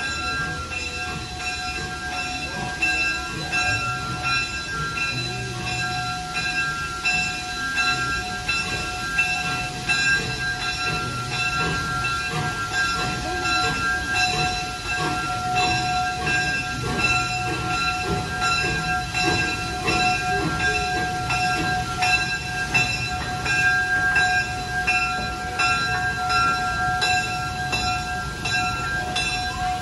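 Jeddo Coal Co. No. 85, a small 0-4-0 steam tank engine, running slowly under steam with rough exhaust chuffs and a steady high-pitched whine held over them.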